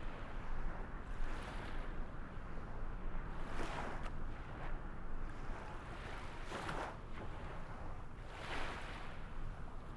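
Waves washing in one after another, each a swelling hiss about two to three seconds apart, over a steady low rumble.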